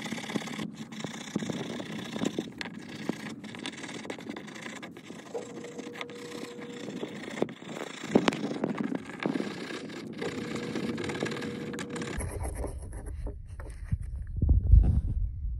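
Small wire brush scrubbing rust off a rusty iron skeleton key on a wooden board: a scratchy scraping with many quick clicks. About twelve seconds in the scrubbing stops and a low rumble follows, with a thump near the end.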